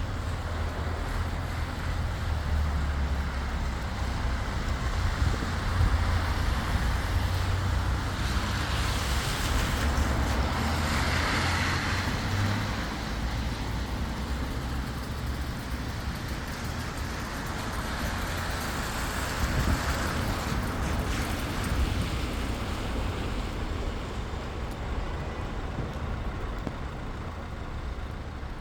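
Steady rain falling, with road traffic mixed in: a low engine rumble through the first half, and vehicles passing about ten and twenty seconds in.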